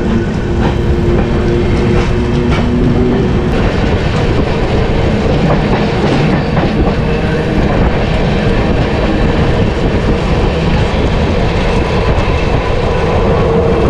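Passenger train coaches passing close alongside on the next track, heard from the open door of a moving train: a loud, continuous noise of wheels on rails.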